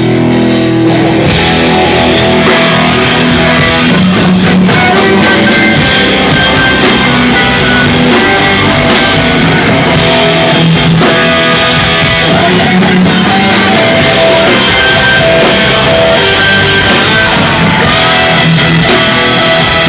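Hardcore band playing live and loud: distorted electric guitars and bass over a pounding drum kit.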